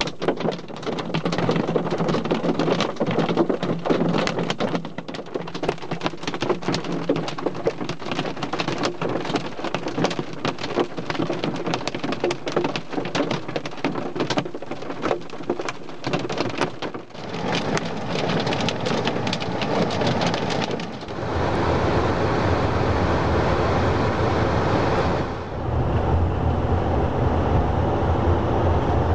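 Hail drumming on a car: a dense, rapid patter of hailstones hitting. About three-quarters of the way through it gives way to the steady rush of the car driving on a wet, hail-covered road, with a low engine hum.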